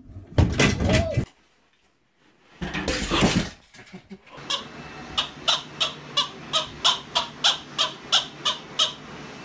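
Two short loud noises in the first few seconds, then a squeaky rubber chicken toy squeaking over and over, about two squeaks a second, as a horse chews it.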